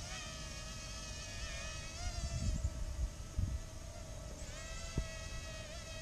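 Parrot Mambo minidrone's small electric motors and propellers whining with a thin buzz as it flies, the pitch wavering up and down with throttle changes. The higher part of the whine fades for a couple of seconds in the middle, and a few low thumps sound around the middle.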